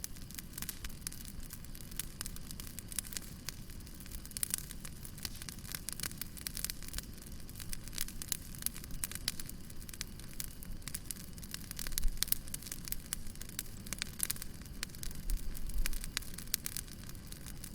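Wood fire crackling and popping, with many quick sharp snaps over a steady low rumble and hiss. A couple of louder low thumps come about two-thirds of the way in and again near the end.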